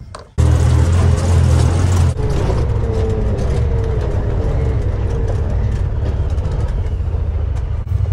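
Side-by-side UTV driving on a gravel road: a steady low engine and drivetrain rumble, heard from inside the open cab, starting abruptly about half a second in, with a faint falling whine over it.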